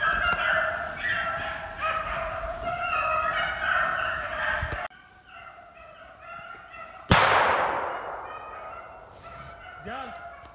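Pack of beagles baying on a rabbit's track, many voices overlapping; the baying drops away suddenly about five seconds in. About seven seconds in comes a single loud gunshot with a trailing echo, and the hounds go on faintly after it.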